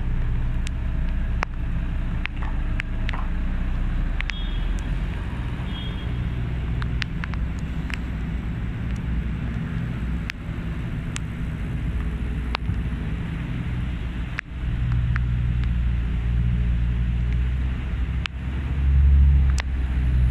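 Heavy lorry diesel engines running in slow traffic on a wet street: a steady low rumble that swells briefly near the end, with scattered sharp clicks.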